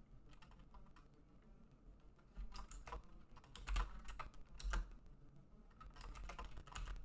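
Typing on a computer keyboard: irregular bursts of a few keystrokes at a time, starting about two seconds in.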